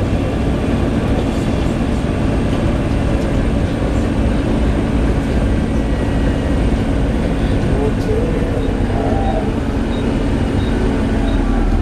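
Volvo B7TL double-decker bus's six-cylinder diesel engine and road noise heard from inside the saloon, a steady drone while under way. Faint regular high ticks about twice a second come in near the end.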